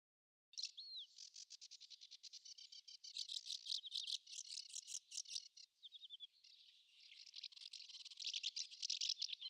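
A small songbird singing long, fast, high-pitched trilling phrases. It starts abruptly about half a second in, and after a short break just past the middle, a second trilling phrase follows.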